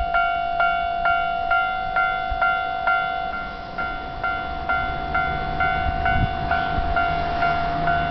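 Japanese railway level-crossing alarm ringing, an evenly repeated electronic bell at about two strikes a second over a steady tone, warning that a train is approaching. A low hum comes in about halfway through.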